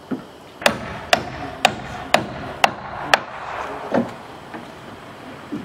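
Hammer driving a nail through a wooden 2x4 brace into a shed's stud-wall framing: six sharp blows about two a second, the nail ringing faintly under them, then a duller knock about four seconds in.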